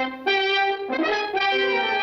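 Brass-led cartoon score music: a short phrase of held brass notes that changes pitch a few times.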